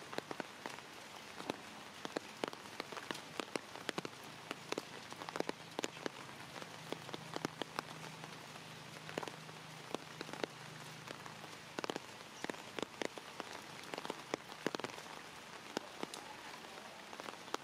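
Rain falling, an even hiss with many sharp drops striking hard surfaces throughout.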